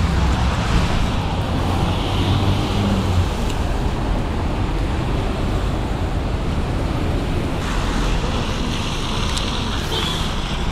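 Steady rainy-street traffic noise: vehicles and tyres on a wet road, with wind rumbling on the microphone.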